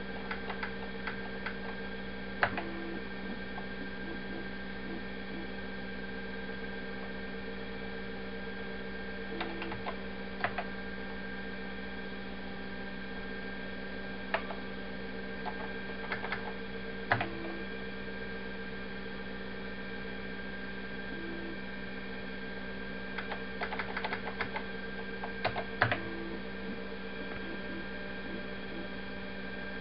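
Keys pressed on a 1982 Apple III computer's keyboard: single clicks and short flurries of clicks, with a few short low beeps, over a steady electrical hum.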